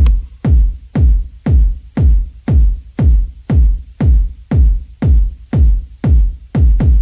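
Electronic background music with a steady kick-drum beat, about two beats a second.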